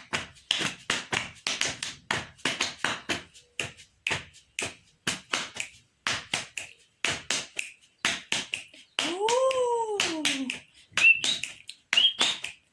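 Body percussion: a quick, steady rhythm of hand claps, slaps and finger snaps combined into a pattern, about four to five strikes a second. About nine seconds in, a voice slides up and then down in pitch, and short high chirp-like mouth sounds follow near the end.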